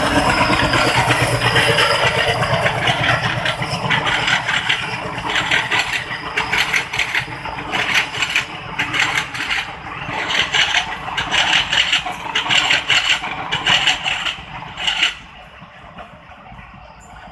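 An express train's coaches rushing past at full speed, their wheels clattering over the rail joints in quick rhythmic bursts. The noise drops away suddenly about fifteen seconds in.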